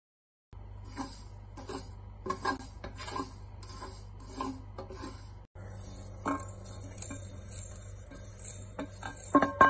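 A wooden spatula scrapes and knocks as it stirs dry whole spices (cumin, fenugreek and mustard seeds) in a stainless steel pan, over a steady low hum. Near the end the steel pan clinks and rings against a steel mixer-grinder jar as the seeds are tipped in.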